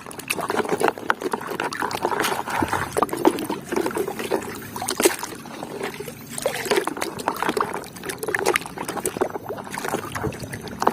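Water sloshing and trickling as a toy crocodile is washed by hand, with frequent small splashes and clicks.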